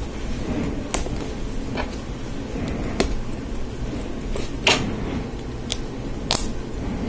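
Hard plastic Lego Technic pieces clicking and knocking as they are handled and fitted together: about six sharp, separate clicks over a steady background hiss.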